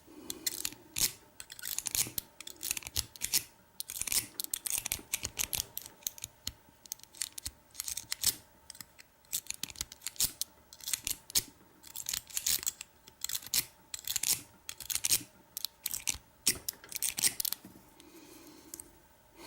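A lock-pick rake scrubbing in and out of a pin-tumbler door lock against a tension wrench, its pins clicking and scraping in quick bursts with short pauses between, the lock not yet opening.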